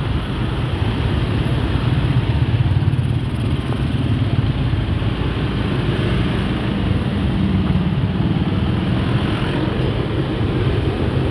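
A motor vehicle's engine running close by, a steady low drone.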